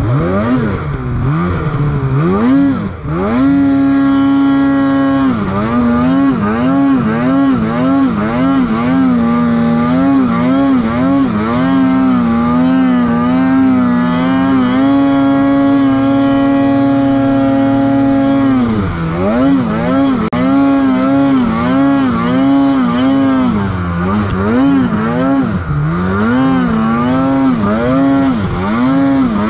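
Two-stroke mountain snowmobile engine revving up and down in quick throttle blips, about two a second, while riding in powder. The revs are held steady and high twice, briefly near the start and for a few seconds in the middle.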